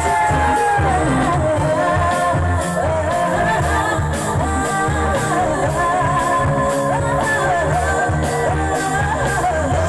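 A woman singing a Kokborok song live into a microphone through a loud PA system, backed by a band with a steady drum beat and bass.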